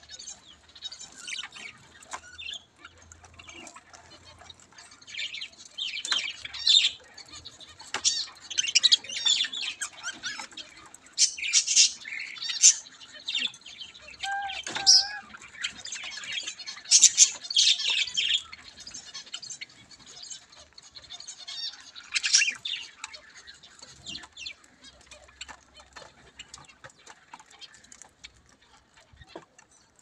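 A flock of budgerigars chattering in short, high chirps and squawks while pecking at seed, with one wavering whistle about halfway through.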